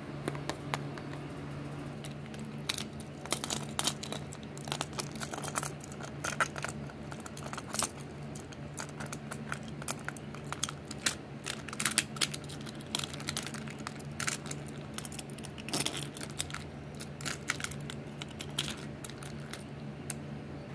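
Irregular clicks and clatters of small plastic toys being handled and pushed along a plastic toy car track, over a steady low hum.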